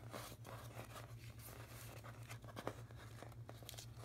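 Faint rustling and light taps of cardstock die cuts and their clear plastic packet being handled and gathered up, with one sharper tap about two and a half seconds in, over a steady low hum.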